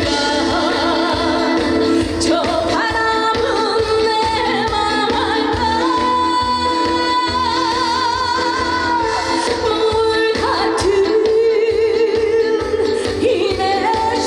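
A woman singing a Korean trot song over backing music with a steady beat, holding long notes with vibrato.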